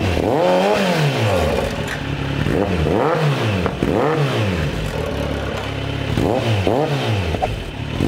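Kawasaki Z900 inline-four engine blipped repeatedly from idle, about six quick revs, each climbing and falling back. The exhaust runs through an aftermarket carbon slip-on muffler held by hand on the link pipe, and has a deep, throaty tone.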